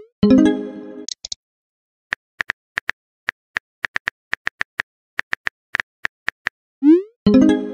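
Chat-app sound effects: a quick rising swoop with a short chime as a message is sent. Then comes a run of irregular keyboard-tap clicks, a few a second, as the next message is typed. About seven seconds in, another rising swoop and chime sounds as that message is sent.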